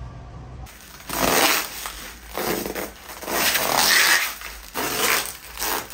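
Bubble wrap rustling and crinkling in a series of loud swells as it is pulled off a wrapped item, starting about a second in.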